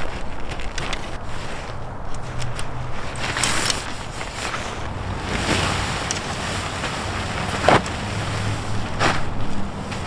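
Strong gusting wind buffeting the microphone, with several short knocks and rustles; the loudest is a sharp crack about three-quarters of the way through.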